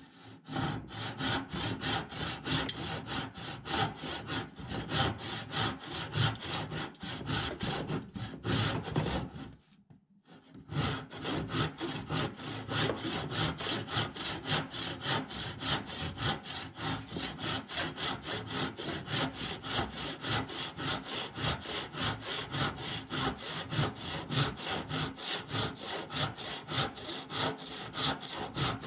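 Hand saw cutting through a pale wooden block in quick, even back-and-forth strokes, each stroke a dry rasp of the teeth through the wood. The sawing stops for about a second roughly ten seconds in, then carries on at the same steady pace.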